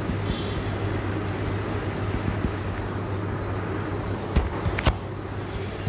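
Steady background noise with a low hum and faint high chirps repeating about twice a second; two light clicks come about four and a half seconds in.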